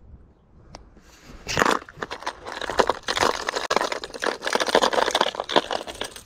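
Hard-bodied plastic lures clattering in a plastic compartment tackle box as a hand rummages through them: a dense run of clicks and rattles starting about a second and a half in and stopping just before the end.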